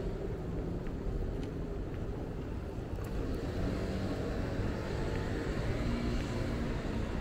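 City street traffic: cars running past with a steady low rumble.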